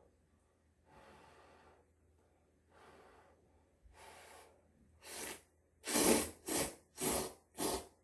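Mouth sounds of a person eating very hot instant ramen: a few soft breathy blows on the noodles, then a run of loud short slurps about twice a second near the end.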